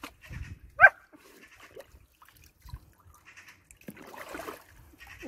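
German shepherds playing in a plastic paddling pool: water splashing and sloshing as a dog moves in it, most of all about four seconds in. One short, sharp dog yelp comes about a second in.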